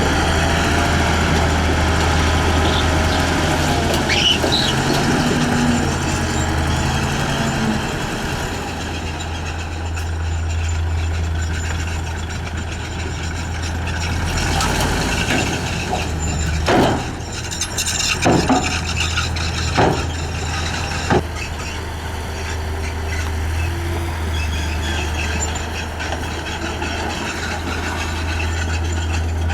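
Heavy diesel earthmoving machine running steadily with a deep low hum. A little past halfway comes a short cluster of about five sharp knocks within four seconds.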